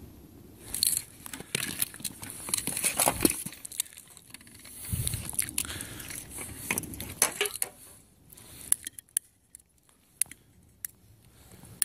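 A hard plastic Shoei motorcycle helmet is handled and shifted on paving stones, scraping, knocking and crackling in an irregular run. It thins out to a few scattered clicks in the last few seconds.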